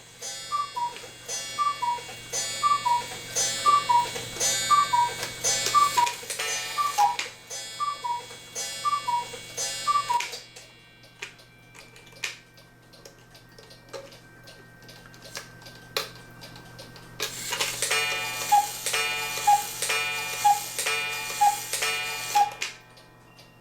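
Cuckoo clock cuckooing: about ten two-note cuckoo calls, one a second, each with a ringing strike of the wire gong and a snapping sound that sounds like an electric arc. Quieter ticking follows, then about five more calls near the end. The owner traces the snapping to the gong sitting out of place on its mounting screw.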